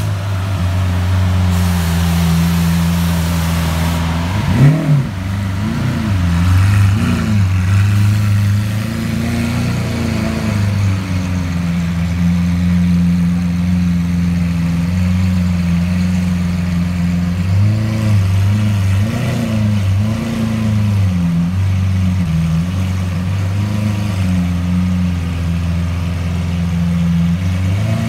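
Lamborghini Aventador SV Roadster's V12 running at a low, steady idle as the car creeps along in an underground car park, with a sharp throttle blip about five seconds in and a few smaller blips around twenty seconds in.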